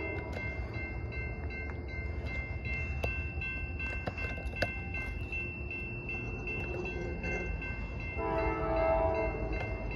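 Norfolk Southern freight locomotive's horn sounding for a grade crossing: a long blast ends just as it begins and another blast comes near the end. Between them the crossing bell rings steadily over the low rumble of the approaching train.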